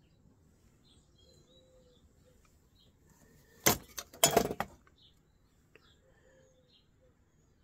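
A quick clatter of hard scrap fuse-box parts knocking together, in two bursts about half a second apart, about four seconds in. Faint bird chirps in the background.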